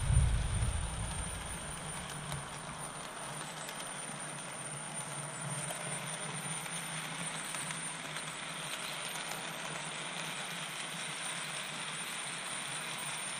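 HO-scale model steam locomotive, a 2-8-4 Berkshire, running along the track: a steady whir and rolling noise from its motor and wheels on the rails. A low rumble fades out over the first second or two.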